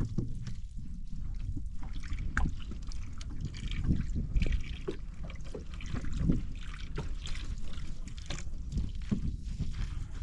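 Sea water splashing and sloshing against a small boat, in irregular short splashes over a steady low rumble.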